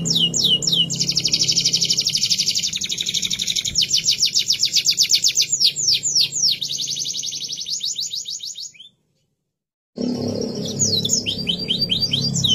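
Domestic canary singing: a long song of fast rolling trills and repeated sweeping whistled notes, each phrase rattled off many times before changing. The song fades and drops out completely for about a second near the end, then starts again with a new phrase.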